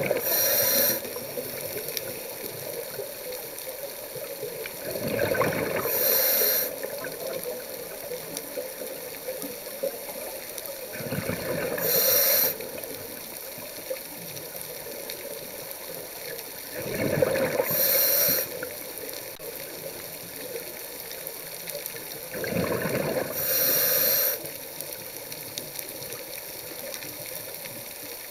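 Scuba diver breathing underwater through a regulator: about five breaths, roughly one every six seconds, each a rush of exhaled bubbles and a short hiss of inhaled air.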